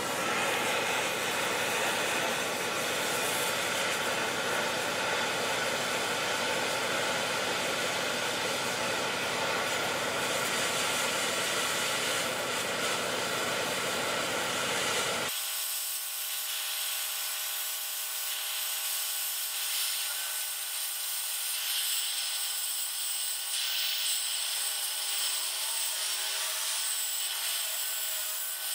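Torch gouging old weld and cracked steel out of the grapple ear mount on a John Deere 748H skidder: a steady, noisy hiss. About halfway through, the sound abruptly loses its low end and turns thinner.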